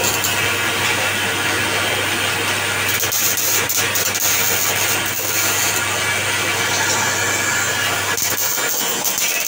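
Manual metal lathe running: a steady motor hum under a dense, noisy machine sound. The hum cuts out about a second before the end.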